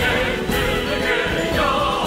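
A Chinese air force military song sung by a chorus with instrumental accompaniment.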